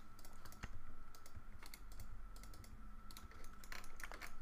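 Computer keyboard keys clicking in scattered, irregular taps, fairly quiet, over a faint steady background whine.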